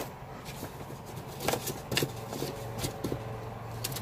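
Sticker books being rummaged through and handled: scattered soft rustles, taps and knocks of paper and covers, over a faint steady hum.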